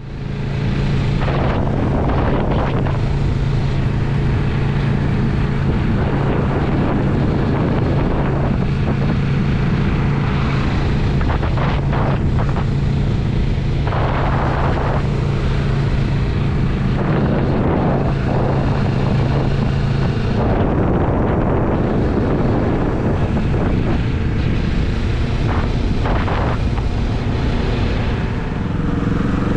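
Motorcycle engine running at a steady cruise with wind noise on the microphone. About two-thirds of the way through, the steady engine hum gives way to a less even note as the bike slows.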